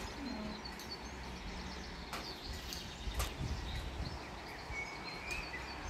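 Outdoor ambience: faint bird chirps over a steady low rumble and hiss, with a few brief clicks.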